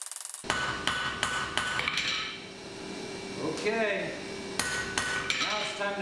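Hand hammer striking hot metal on a steel anvil. There is a quick run of blows, a pause, then a few more, each blow ringing briefly.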